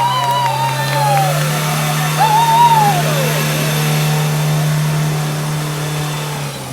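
Off-road vehicle engine running with a steady note that cuts off shortly before the end, with the revs rising and falling over the first three seconds.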